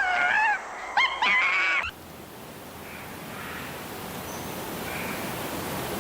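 Repeated short animal calls that bend in pitch; a little under two seconds in the sound cuts abruptly to a steady rushing noise, with faint brief calls about every two seconds.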